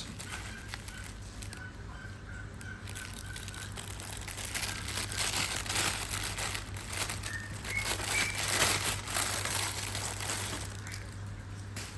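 Bubble-wrap and plastic packaging crinkling and crackling as it is handled and unwrapped, picking up about four seconds in and going on until near the end.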